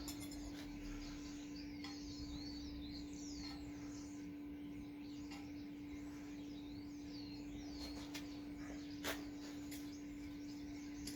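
Small birds singing and chirping in warbling phrases over a steady low hum, with a few light clicks, the sharpest about nine seconds in.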